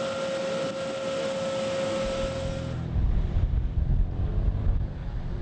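Steady machinery hum with a high held whine beside a RHIB hanging from a ship's davit. About three seconds in it gives way to a loud, uneven low rumble of wind buffeting the microphone over a boat's engine as the RHIB runs away through the waves.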